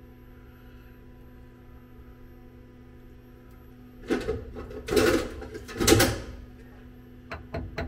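Steady machine-shop hum, then a few loud scraping, clattering handling sounds as small metal parts and a spacer are set into a fixture. Near the end comes a quick run of sharp small clicks, about five a second.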